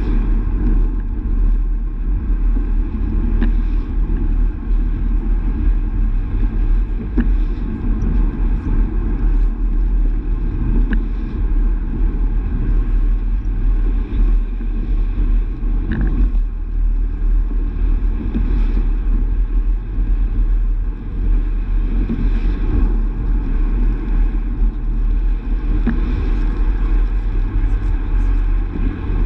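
Steady low rumble of a Vauxhall Astra GTC hatchback driving along, engine and tyre noise heard from inside the cabin, with a few faint ticks.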